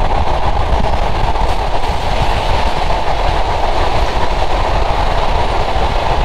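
Sundarban Express passenger train running at speed along an elevated concrete viaduct: a steady, loud rumble of wheels and coaches heard from an open coach door, with wind buffeting the microphone.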